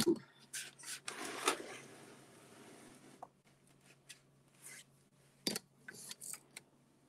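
Handling noise as a camera and its tripod are repositioned: a rustling rub lasting about two seconds near the start, then scattered light clicks and knocks.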